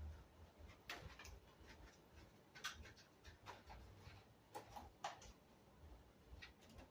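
Near silence with faint, scattered clicks and light knocks of small objects being handled, the sharpest about one, three and five seconds in.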